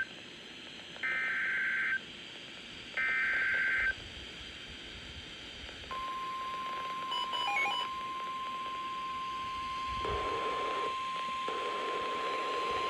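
Emergency Alert System SAME header on NOAA Weather Radio: two roughly one-second bursts of screeching two-tone data, a second apart. Then, about six seconds in, the steady 1050 Hz weather radio alert tone starts and holds, signalling that a warning message follows. Static hiss under the tone grows louder near the end.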